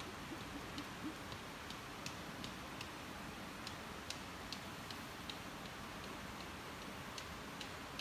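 Faint, sharp ticks at irregular spacing, about two a second, over a steady hiss.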